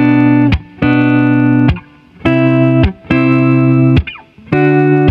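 Outro music led by electric guitar: loud chords held for half a second to a second each, with short breaks between them.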